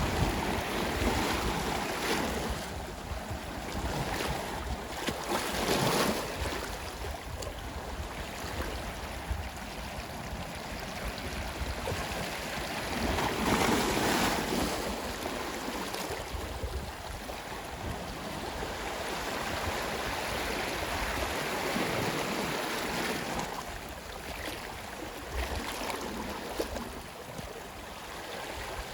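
Ocean waves washing onto a shore, swelling and fading in slow surges every several seconds, the biggest about 6 and 14 seconds in.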